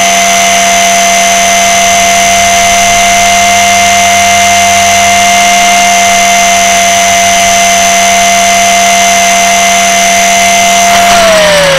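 Blade 300X electric RC helicopter's motor and rotor heard from directly underneath: a loud, steady whine at one pitch. Near the end the pitch begins to fall as the rotor spools down for landing.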